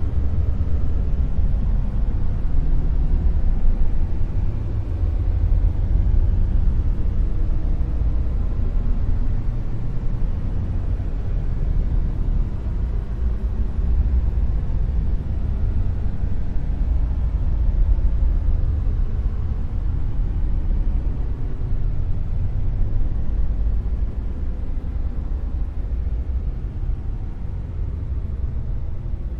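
Dark noise: a steady, deep rumbling hiss with most of its weight in the bass and little treble, swelling and easing slightly without any distinct events.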